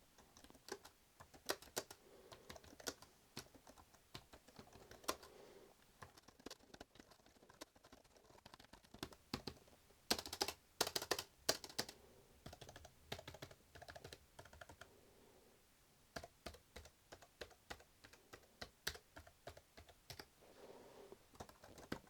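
Typing on a ZAGG Pro Keyboard 17, a full-size wireless keyboard with low-profile chiclet membrane keys: quiet, irregular key clicks, with a quicker, louder run of keystrokes about ten seconds in.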